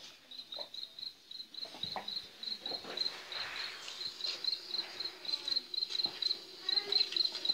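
Insect chirping steadily: a short, high, even-pitched chirp repeated about five times a second.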